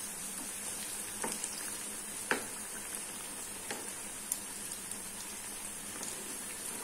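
Battered eggplant slices (beguni) sizzling steadily as they deep-fry in hot oil in a pan. A few sharp clicks come as the utensil turns them, the loudest about two seconds in.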